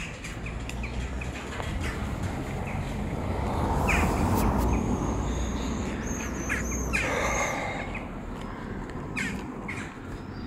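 Outdoor background noise with birds calling, a few short arched calls standing out about six to seven seconds in. A broad rushing noise swells and is loudest around four seconds in.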